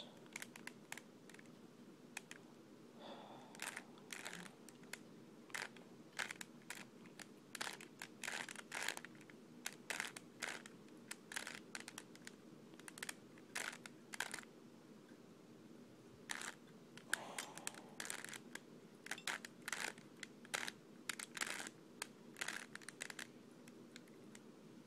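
Plastic 3x3 Rubik's cube being turned by hand: irregular clicks and clacks as its layers rotate, over a faint steady hum.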